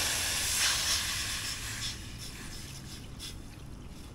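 Water poured from a jug into a hot stainless steel pot holding a fish head and bones; the hot metal and fish hiss and sizzle, and the hiss dies away as the pot fills.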